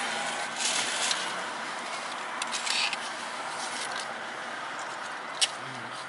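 Aluminium foil taco wrappers crinkling in short bursts as the tacos are handled and eaten, with a single sharp click about five seconds in.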